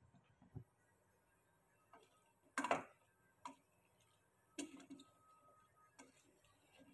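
A spoon knocking and scraping against a metal pressure-cooker pot while stirring chunks of cauliflower and potato: a few scattered clicks and knocks, the loudest about two and a half seconds in.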